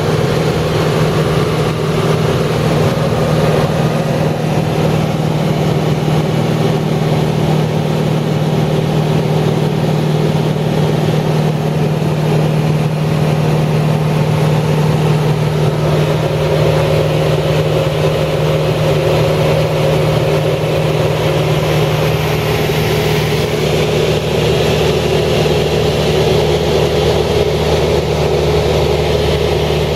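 A steady, unbroken engine hum at an even pitch.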